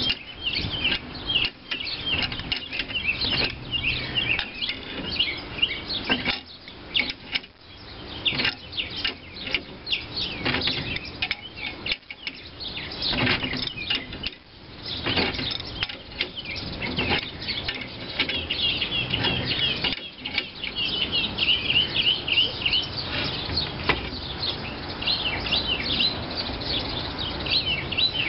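Birds chirping, with scattered metal clicks from an adjustable wrench turning a gear puller's screw to press a crankshaft out of a cast-iron engine flywheel.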